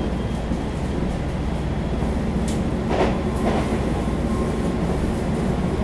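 Running noise inside a Taiwan Railway EMU700 electric multiple unit at speed: a steady rumble of wheels on rail, with a few sharp clacks around the middle.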